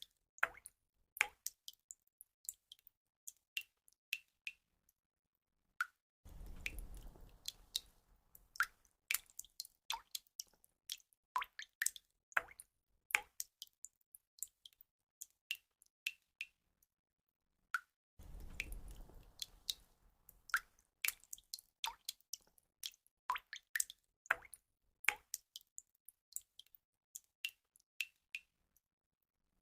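Water drops dripping and plinking at an irregular pace, several a second, some with a short ringing pitch. Twice, for about three seconds, a low rumbling haze of water sound comes in under the drips, and the whole pattern repeats about every twelve seconds.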